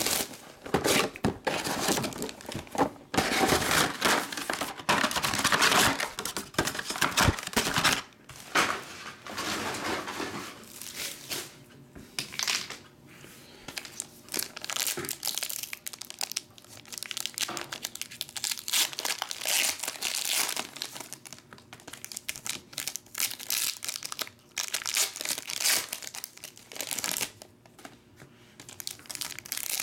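Plastic shrink wrap being torn off a trading-card box, then foil card-pack wrappers crinkling and tearing open, in irregular bursts of crackle.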